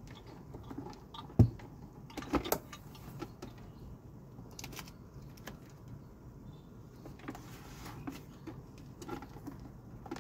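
Handling noise as the power plug, cord and base of a steam-generator iron are moved about on a workbench: one sharp knock about a second and a half in, a couple of clatters about a second later, then scattered light taps over a faint low hum.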